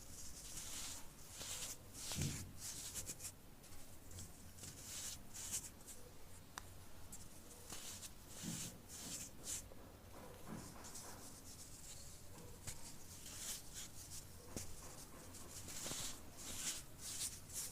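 Compressed baking soda being crushed and crumbled by hand, making faint, irregular gritty crunches and scratching.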